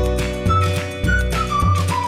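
Background music: an instrumental passage of a pop song with a steady beat, a bass line, and a repeating high melody of short notes.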